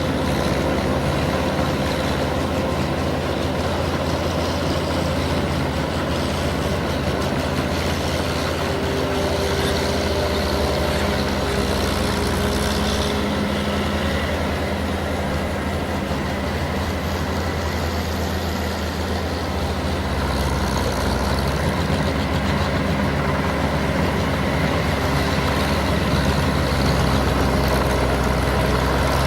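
Engine of a ploughing machine working a wet paddy field, running steadily with a low hum that dips a little about two-thirds of the way through, then picks up again.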